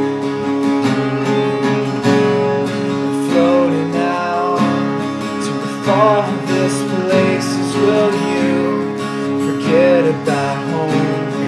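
Two acoustic guitars strummed together, playing a song, with a man's voice singing over them in places.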